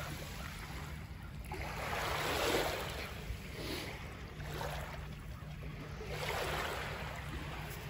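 Small Lake Michigan waves lapping onto a sandy, pebbly shore, rising and falling every second or two over a steady low rumble.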